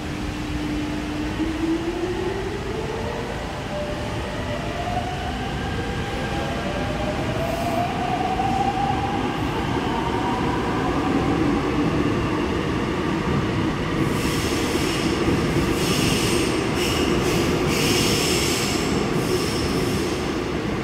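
Seoul Subway Line 5 train pulling out of the station: its motors give a whine that climbs in pitch over the first ten seconds or so as it speeds up, over a steady rumble. From about two-thirds of the way through, a high-pitched wheel squeal comes and goes.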